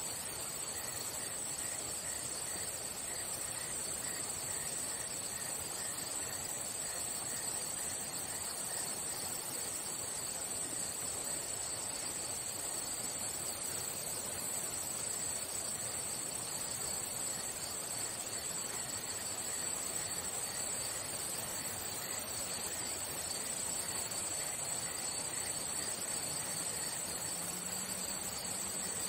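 Steady chorus of singing insects: a continuous high-pitched trill that does not let up, with a fainter lower pulsing chirp in the first part.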